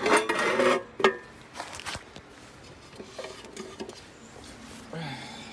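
Metal fuel surge tank parts being handled and fitted together. A burst of clattering and rubbing comes first, then a sharp knock about a second in, followed by scattered lighter clinks and knocks.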